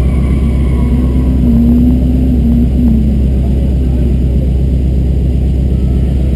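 Car engines idling with a deep, steady rumble. A wavering higher tone rides over it for a couple of seconds about a second in.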